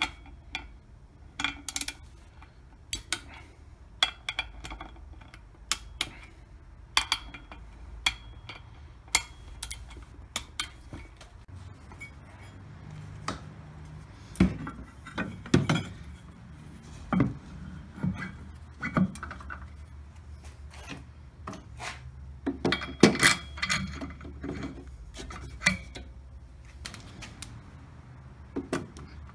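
Metal clicks of a ratchet torque wrench tightening the clutch cover bolts on a snowmobile primary clutch, about one a second. About halfway through come heavier metal clunks as the clutch is fitted onto the engine shaft, then quick ratchet clicking as the clutch bolt is run in.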